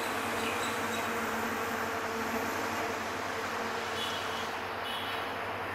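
EMD GT38ACL diesel-electric locomotive approaching at the head of a passenger train, its engine a steady drone over the train's running noise.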